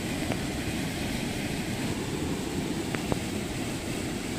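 Floodwater pouring over a low weir crest and churning below it: a steady, even rush of falling water.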